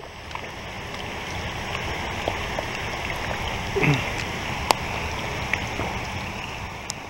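Rain falling on a swimming pool's surface: a steady hiss dotted with small drop ticks, and a brief low burble of water just before four seconds in.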